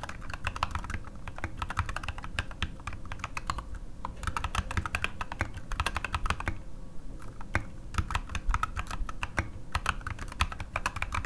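Typing on an NK65 mechanical keyboard with unlubed C3Equalz Tangerine V2 linear switches under SA-profile ABS keycaps: rapid key clacks in bursts, broken by short pauses.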